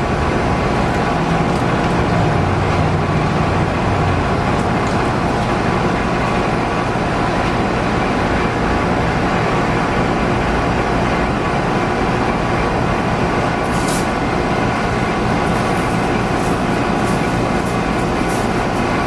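Steady machine noise: a motor running at a constant speed with an even hum.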